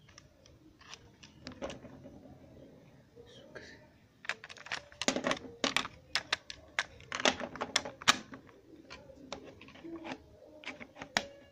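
Sharp plastic clicks and knocks from a cassette being loaded into a 'Super USB Cassette Capture' portable cassette player and its door being shut. The clicks come scattered, thickest and loudest from about four to eight seconds in.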